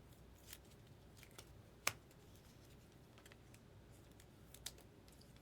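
A few faint, scattered clicks and taps over quiet room tone, the sharpest a little under two seconds in.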